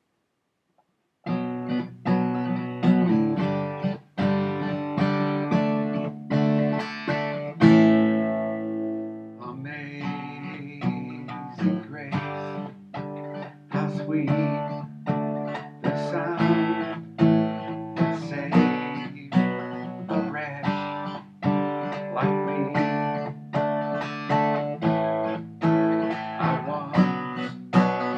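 Acoustic guitar playing an instrumental opening of fingerpicked and strummed chords. It starts about a second in, and one chord rings out on its own around eight seconds in before the picking resumes.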